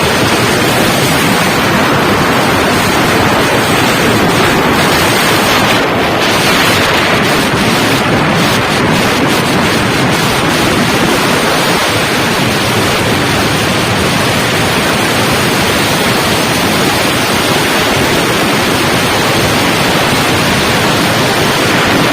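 Loud, steady rush of wind on the microphone of a motorcycle riding at speed, covering any engine sound.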